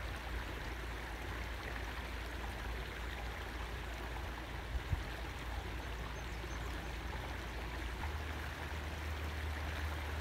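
Creek water running steadily, an even rushing noise, with one faint click about halfway through.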